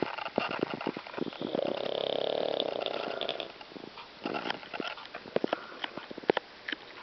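A cat snoring loudly in its sleep: one long snore lasting about two seconds, starting about a second and a half in, with scattered short clicks and snuffles around it.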